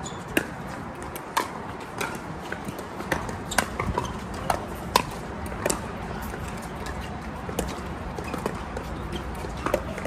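Pickleball paddles striking a plastic ball in a doubles rally: a run of sharp pops at uneven intervals, about one or two a second.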